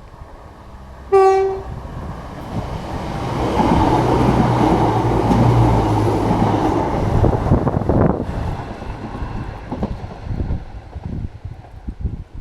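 A diesel passenger train gives one short horn blast, then runs past on the rails. The sound of the wheels and the engine swells over a few seconds and then fades away.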